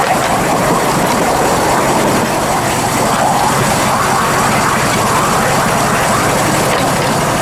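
Miniature railway train running along its track: a steady, unchanging engine-like drone with wheel-on-rail running noise.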